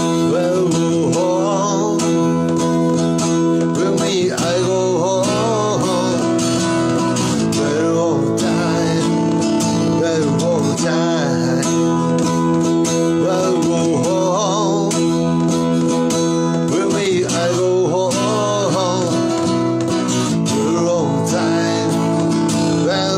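Steel-string acoustic guitar strummed in a steady rhythm, with a wavering melody line over the chords, as an instrumental passage between sung lines.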